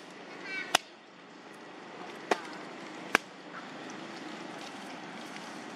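Outdoor background noise broken by three sharp clicks or snaps, with a brief high chirp-like call just before the first of them.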